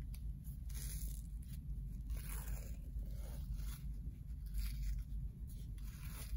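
Athletic tape peeling off the roll, torn and smoothed onto a taped ankle: a few soft tearing and rustling sounds.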